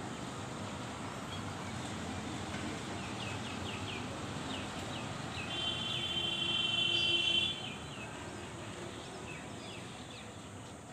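Outdoor neighbourhood ambience with a steady background hiss and small birds chirping. Just past the middle comes a call held on one pitch for about two seconds, the loudest sound.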